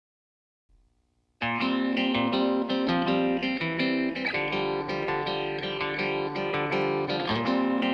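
Silence, then background music with guitar that starts abruptly about a second and a half in and plays steadily on.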